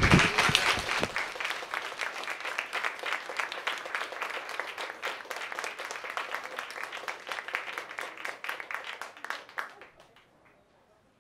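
Audience applauding, a dense patter of hand claps that thins out and dies away about ten seconds in.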